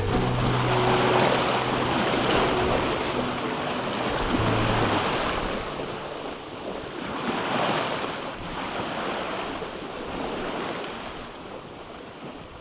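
Sea water rushing and washing past a sailboat's hull under sail, in slow surges every few seconds, with wind on the microphone. The sound fades away over the last few seconds.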